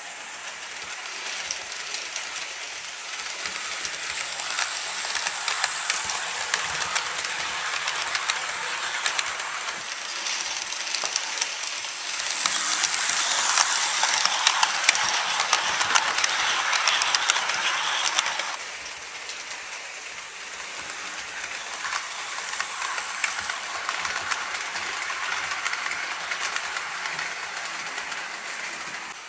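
HO scale model passenger train running on the track: a steady rolling hiss with fine ticking from the wheels on the rails. It is louder for several seconds in the middle and then drops off suddenly.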